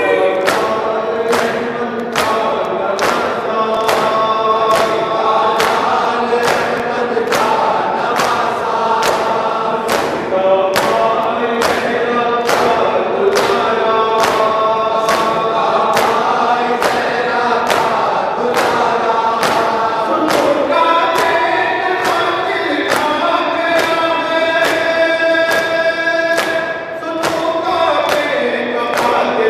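A group of men chanting an Urdu noha (Shia mourning elegy) in unison, with a steady beat of open-hand chest slaps (matam) keeping time.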